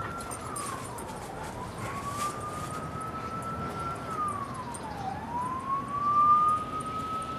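Emergency vehicle siren on a slow wail, one tone rising for about three seconds and dropping back in about one, over and over.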